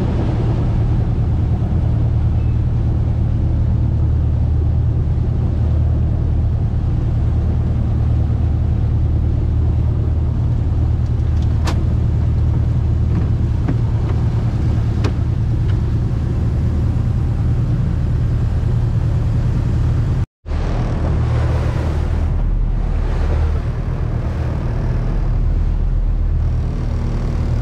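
Fishing boat's engine running steadily under way, a constant low drone with water and wind noise over it. It drops out for an instant about twenty seconds in, then carries on.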